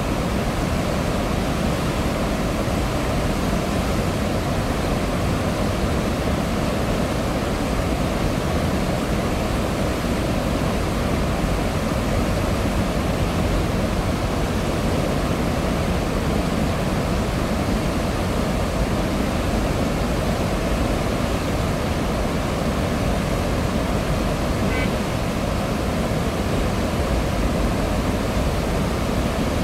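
Floodwater released through the open gates of a large river dam, pouring out with a steady, heavy roar of churning water.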